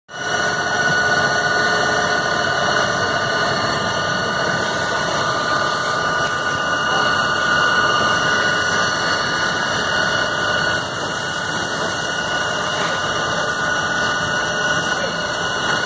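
Fire truck engine running steadily, with a constant high whine over the rumble.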